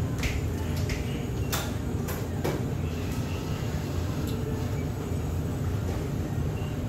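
Steady low background rumble, with a few light clicks and knocks in the first couple of seconds.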